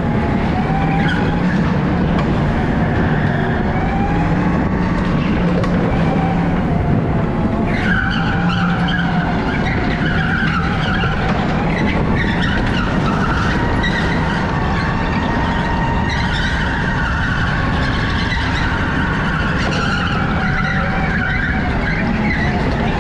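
Electric go-kart driven flat out: a steady rush of noise with whining tones that rise and fall as it speeds up and slows for the corners. From about eight seconds in, the tyres squeal through the turns on the slick track surface.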